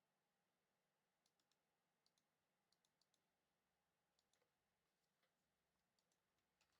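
Near silence broken by faint, sharp clicks, some coming in quick runs of two or three.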